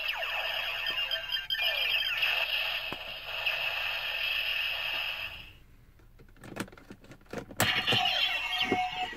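DX Ziku-Driver transformation belt toy playing its electronic sound effects through its small speaker for about five seconds, then a few sharp plastic clicks as the belt is worked, followed by another burst of the toy's electronic sounds.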